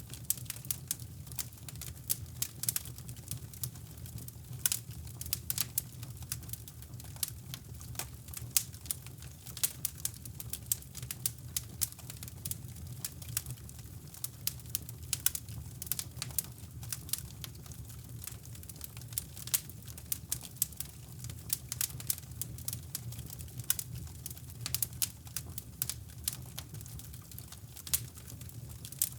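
Wood fire crackling in a fireplace, with irregular sharp pops and snaps over a steady low rumble of brown noise.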